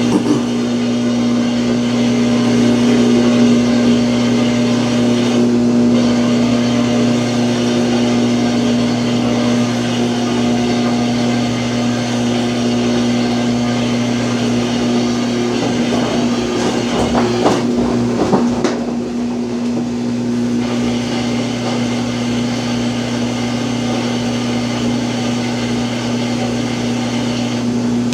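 Samsung washing machine starting its spin cycle: a loud, steady motor hum, with a cluster of knocks and rattles about two-thirds of the way through as the tub shifts around. It is the noise of a washer that will not complete its spin, which the owner blames on a defective machine.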